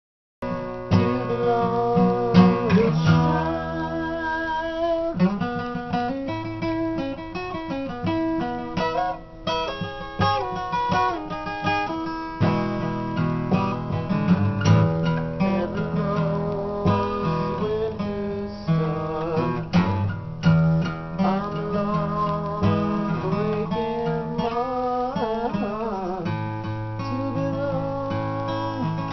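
Yamaha FG450SA acoustic guitar with a solid spruce top, played in traditional blues chord phrasings.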